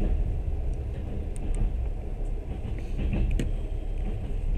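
Moving train's steady low rumble, with a couple of faint clicks.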